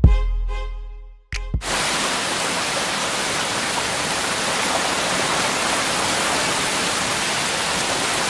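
A drum-machine beat fades away within the first second. After a short gap and two sharp hits, a steady, even rush of heavy rain sets in and continues.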